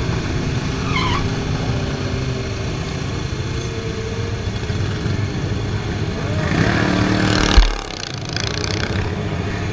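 Sport motorcycles running at freeway speed, heard from one of the bikes in the group, with steady engine hum and rushing noise. The sound swells shortly before a sudden loud thump about seven and a half seconds in.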